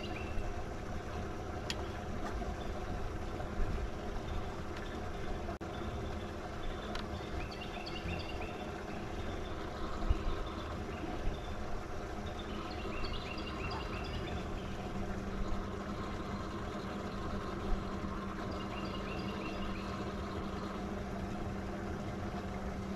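Steady hum of a bass boat's motor, most likely the electric trolling motor holding position, a little stronger from about the middle on. A bird chirps in short quick runs several times over it.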